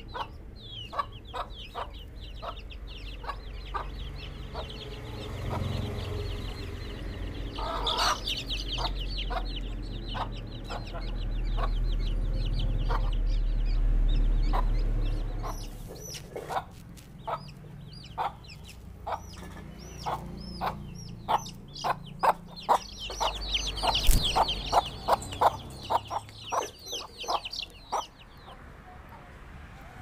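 Chickens clucking in a steady run of short clucks, about two a second, with young chicks peeping shrilly in flurries about a quarter of the way in and again near the end. A low rumble swells for a few seconds midway.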